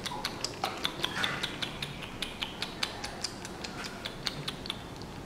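Rapid, uneven clicking: about four to five short, sharp clicks a second, some louder than others.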